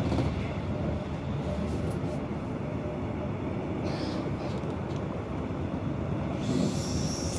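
Regional train running, heard from inside the carriage as a steady low rumble. Near the end a high-pitched squeal sets in over it.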